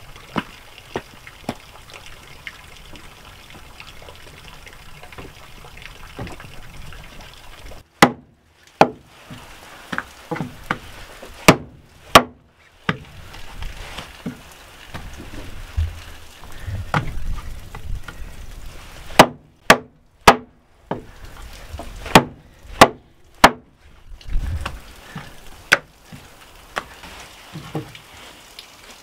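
Small axe chopping through raw ribs on a wooden board: sharp loud knocks, a run of about six and then, after a pause, about seven more. For the first several seconds a steady trickle of running water is heard.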